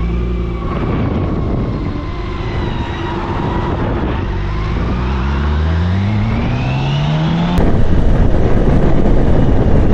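BMW K1600B's inline-six engine accelerating, its pitch rising steadily for several seconds as the bike pulls away. About seven and a half seconds in, the sound switches abruptly to a louder, steady rushing noise.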